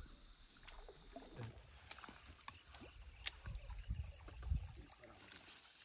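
Faint handling noise and scattered light clicks from a baitcasting reel being cranked to bring in a surface lure, with a couple of sharper ticks about three and four and a half seconds in.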